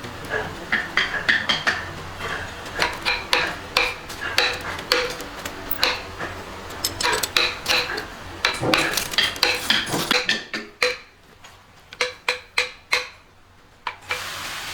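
Rapid, irregular metallic clinks and taps, several a second, each with a short ring. Near the end they slow to single, spaced taps.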